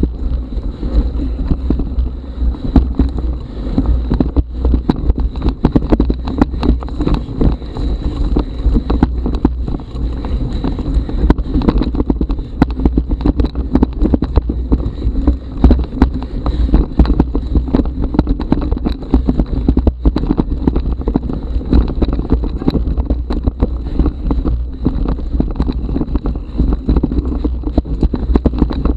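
Mountain bike rolling down a rough forest trail: a constant low rumble and rattle with frequent sharp knocks as the bike jolts over roots and stones.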